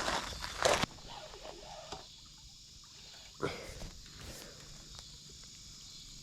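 Loud rustling handling noises for the first second, then a single sharp knock about three and a half seconds in, over a faint steady chirring of insects.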